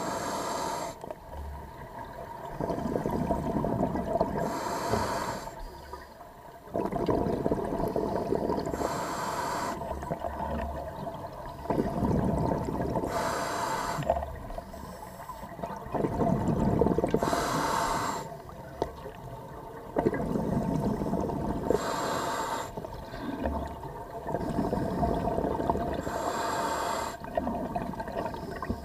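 Scuba diver breathing through a regulator underwater: each breath is a short hiss of inhaled air followed by a longer rush of exhaled bubbles. The cycle repeats steadily, about one breath every four seconds.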